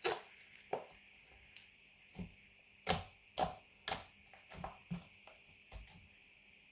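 Glitter slime being worked by hand: a string of about ten sharp, irregular pops and clicks, the loudest three coming close together about three seconds in.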